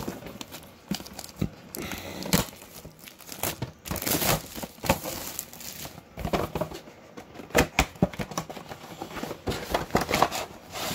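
Plastic packaging crinkling and rustling as game pieces are unpacked, with irregular sharp clicks and knocks of the pieces being handled.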